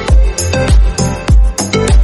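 Background electronic dance music with a steady, punchy kick-drum beat and percussion.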